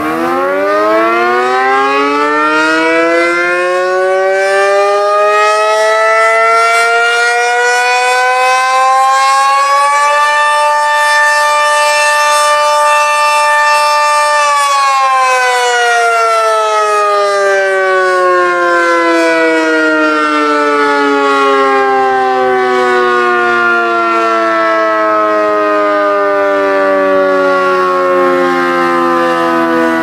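Sentry 40V2T rotating dual-tone outdoor warning siren sounding the alert tone of a test, its two ports giving a chord. It winds up over about ten seconds, holds a steady pitch for about four seconds, then slowly winds down. Near the end it starts winding up again as the attack cycle begins.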